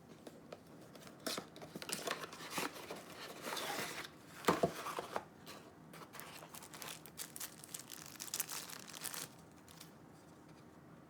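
Phone packaging being handled and opened: crinkling and tearing of wrapping with sharp clicks and handling noises, loudest about four and a half seconds in, stopping about nine seconds in.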